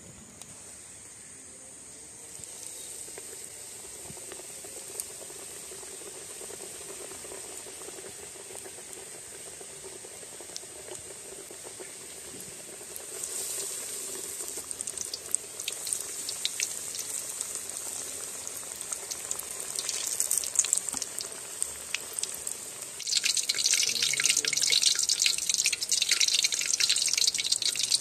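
Tuna, baby jackfruit and cabbage-leaf rolls deep-frying in coconut oil in a metal wok over a wood fire: a soft hiss that gains crackles about halfway through and turns to loud, dense sizzling near the end.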